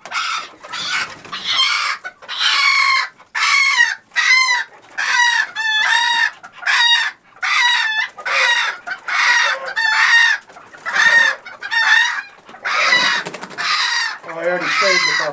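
A small bantam rooster squawking loudly and over and over, about one and a half high calls a second, as it is caught and handled.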